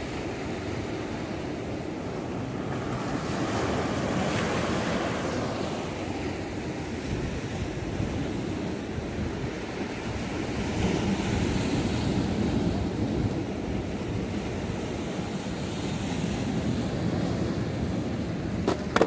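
Sea waves surging and breaking against a rocky shore, swelling louder a few times, with wind rushing across the microphone.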